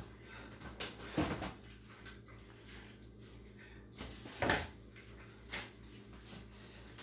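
Two short, effortful exhales about three seconds apart, in time with a standing torso twist while holding a hand weight.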